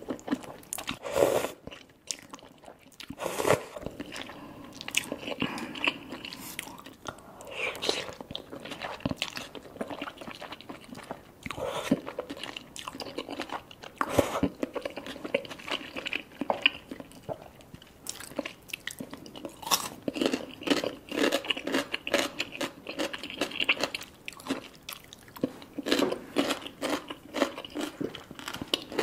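A person slurping and chewing Korean spicy ramyeon noodles, a run of irregular wet mouth clicks and slurps.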